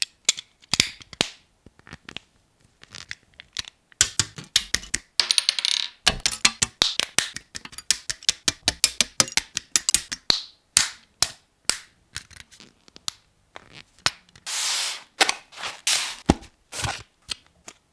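Hard plastic parts of a Bandai Pikachu model kit being cut from their runners with side cutters and pressed together by hand: an irregular run of sharp clicks and snaps with short pauses. About three-quarters of the way through there is a brief rasping noise.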